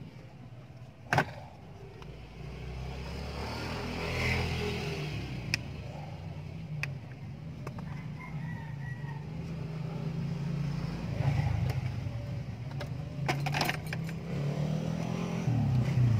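A motor vehicle's engine running, a low hum that shifts in pitch and gets louder toward the end, with a few sharp clicks.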